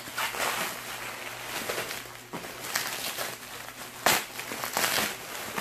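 Packaging wrap crinkling and rustling as a package is handled and opened, with a few sharper crackles, the loudest about four seconds in.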